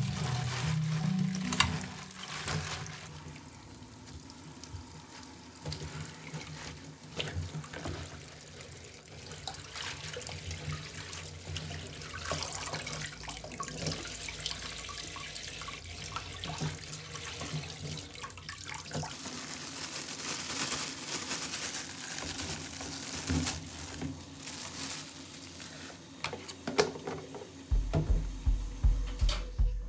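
Kitchen tap running into a stainless steel sink while napa cabbage leaves are rinsed and rubbed by hand in a steel bowl, with splashing and the odd knock of the bowl. Music with a steady beat comes in about two seconds before the end.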